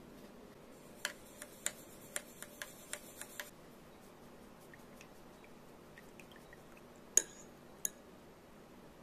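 Paintbrush rinsed in a small glass bowl of water: a quick run of light clinks against the glass, then two sharper taps on the rim near the end.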